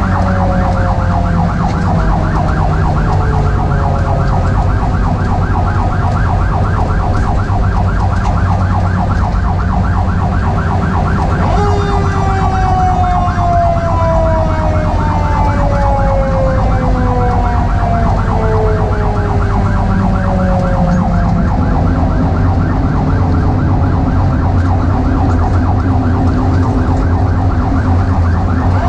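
A fire engine's Federal Q mechanical siren slowly winding down in pitch, boosted back up about a third of the way in, then spinning up sharply near the end. Under it run a fast-cycling electronic siren and the steady drone of the truck's diesel engine.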